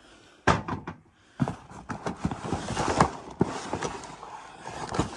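Junk being rummaged through and shifted by hand: a couple of sharp knocks about half a second in, then a busy run of clunks, rattles and rustling as objects are moved and knocked together.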